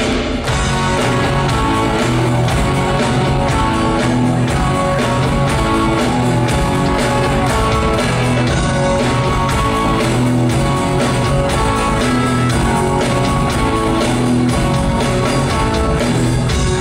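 Live rock band playing with electric guitars and a drum kit, loud and steady with a regular beat.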